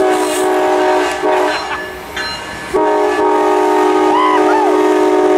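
Locomotive air horn sounding a chord: a short blast at the start, then a longer one held from about three seconds in, over the noise of a passing double-stack freight train.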